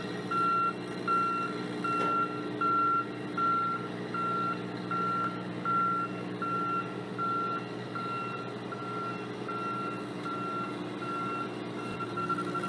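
Box truck's reversing alarm beeping steadily, about one beep every three-quarters of a second, over the truck's engine running. The beeps are louder in the first half and a little fainter after about six seconds as the truck backs up.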